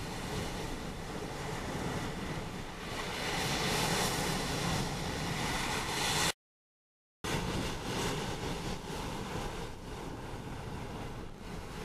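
Wind buffeting the microphone over choppy estuary water, a steady rushing noise with no engine tone. It cuts out to silence for under a second about six seconds in.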